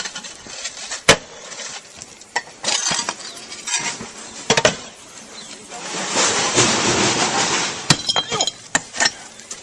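Clay roof tiles clinking and knocking as they are handled and set down, with sharp clatters at irregular moments and a stretch of hiss about six seconds in.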